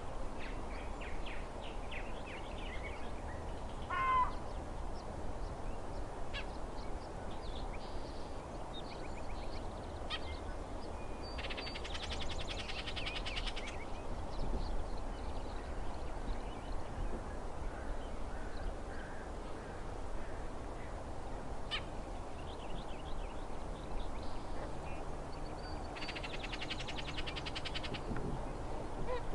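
Bullock's oriole giving harsh, agitated chatter calls: two longer dry rattles about twelve and twenty-six seconds in, among scattered short chirps, over a steady low background rumble.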